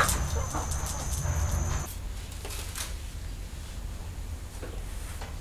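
Domestic animal calls over a steady low rumble and a thin, steady high tone, all cutting off abruptly about two seconds in; after that, a quieter outdoor ambience with a few faint clicks.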